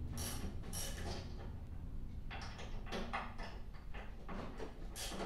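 Hand work on a new snowblower's handle hardware: a string of short, uneven clicks, scrapes and rattles of hand tools and parts.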